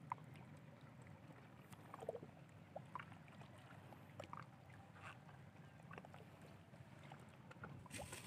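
Near silence: a faint steady low background hum with a few faint, scattered short ticks.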